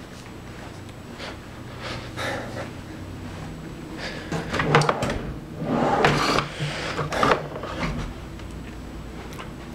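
End-table drawer sliding open and shut: several scraping slides and knocks in a small room, loudest about five to seven seconds in.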